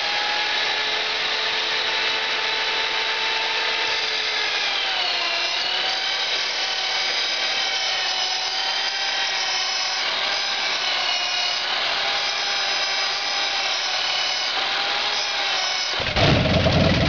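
Cordless drill whining steadily as it cranks over a seven-cylinder Jacobs L4MB (R-755) radial engine for its first start in years, its pitch sagging now and then under load. Near the end the engine fires with a sudden loud, rough burst.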